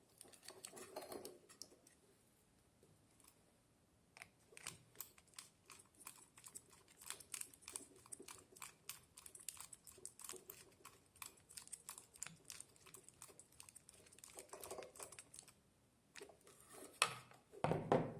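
Hands wiring an electrical switch: a long run of rapid small clicks and scrapes as wires are connected to its terminals.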